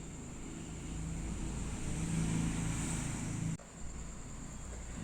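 Steady low background rumble with a faint high whine, swelling slowly and then cutting off abruptly about three and a half seconds in.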